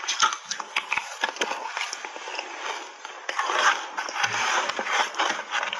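Close-miked crunching and chewing of a big mouthful of soft refrozen shaved ice coated in matcha powder: a dense run of crisp crackles and crunches. Near the end comes a spoon scooping and scraping the ice in the bowl.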